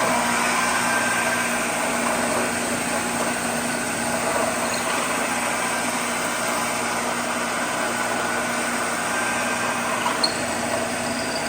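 Shopsmith multipurpose machine running steadily as a horizontal boring machine, its motor turning a drill bit to bore a hole in a wooden board.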